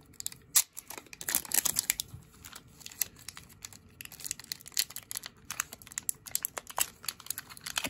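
Clear plastic wrap crinkling and rustling in the hands while a coiled headphone cable is handled, with many small irregular crackles and clicks.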